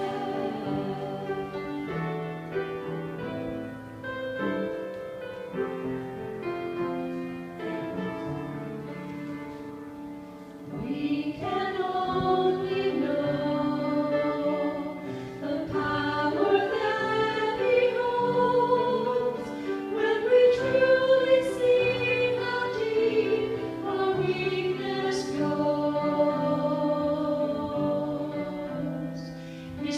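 A small group of women singing a gospel song together, accompanied by piano. It is softer for the first ten seconds or so and grows louder from about eleven seconds in.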